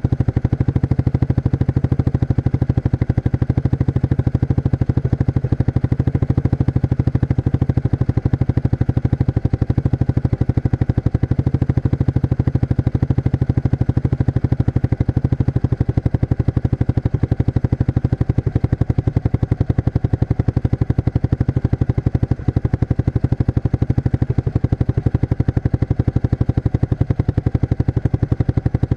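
1994 Suzuki King Quad 300's single-cylinder four-stroke engine running steadily through its stock muffler with the baffles removed, giving a loud, rapid, even exhaust pulse with no revving.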